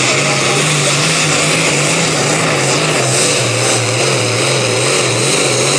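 Super stock pulling tractor's engine running flat out under load on the pull, its pitch wavering slightly up and down.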